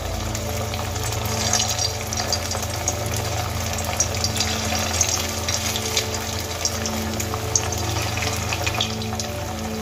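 Muri pakoras deep-frying in hot oil in a steel kadai: a steady, dense crackle and sizzle of bubbling oil as pieces are lowered in, over a steady low hum.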